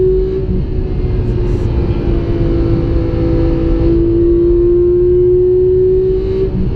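Porsche 911 GT3 (991) with its naturally aspirated 3.8-litre flat-six, heard from inside the cabin. The engine pulls at a steady engine speed, its note rising slowly and dipping briefly near the end.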